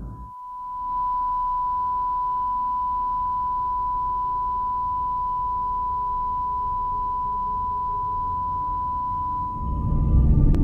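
A single steady high-pitched pure tone, a film sound effect, swelling in over the first second, holding level, and fading out near the end.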